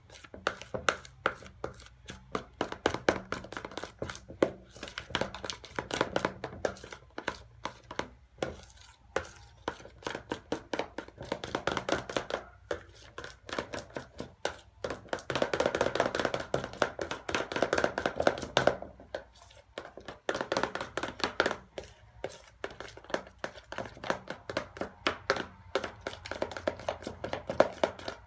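A spoon stirring sticky slime in a plastic bowl: quick, irregular clicks and wet smacks, several a second, as it scrapes the bowl and pulls through the slime. The glue slime is thickening as borax activator is mixed in.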